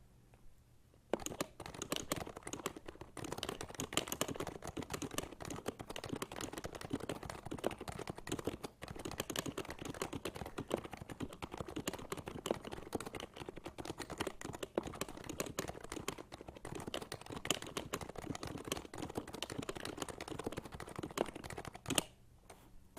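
Continuous fast typing on a Happy Hacking Keyboard Type-S with silenced 45 g Topre switches: a dense, irregular run of keystrokes that starts about a second in and stops about a second before the end.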